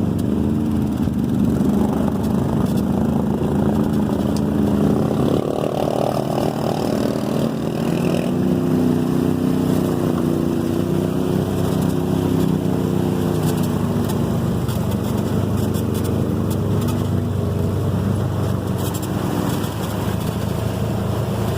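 Off-road vehicle engine running steadily under load through deep mud and water, its pitch rising and falling with the throttle.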